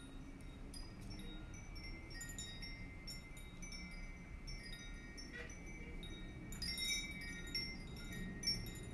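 Soft background music of tinkling, chime-like notes, some of them held.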